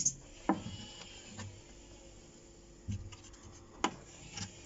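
Several sharp knocks, irregularly spaced, from the drive-pulley assembly of an Electrolux PerfectCare 600 top-loading washing machine as its drum is turned by hand, with some rubbing. The knock comes from the drum pulley bolt, which has a very slight play.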